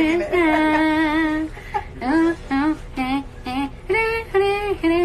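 A woman singing a melody alone in syllables with no clear words. She holds a long, wavering note for the first second and a half, then breaks into short, choppy sung syllables.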